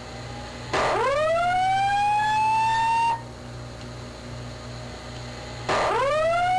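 Fire alarm voice-evacuation system sounding its whoop signal: two rising sweeps, each gliding upward for about two and a half seconds and cutting off sharply, a few seconds apart.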